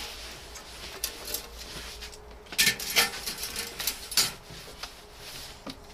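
Several short knocks and clinks, the loudest a cluster about two and a half to three seconds in and another just after four seconds.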